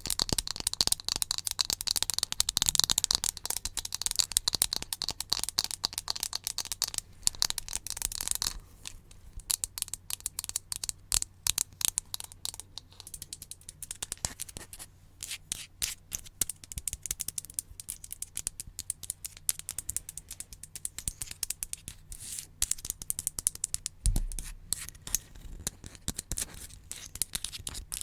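Close-miked ASMR trigger sounds: a dense, rapid crackling scratch that about eight seconds in gives way to quick, sharp separate clicks and scratches.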